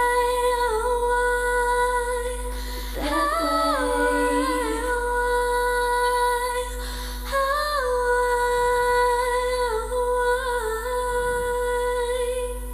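Layered female a cappella vocal harmonies humming wordless held chords, with short melodic runs sliding between notes a few times.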